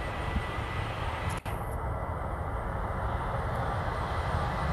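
Jet airliner's engines running at taxi power, an Airbus A320-family twinjet: a steady rumble and hiss with a faint steady whine. The sound drops out for an instant a little over a second in.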